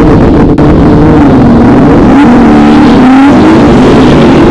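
Several performance SUV engines revving loudly, their pitch rising and falling.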